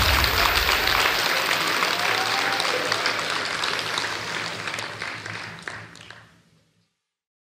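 Applause from a crowd, fading away to silence near the end.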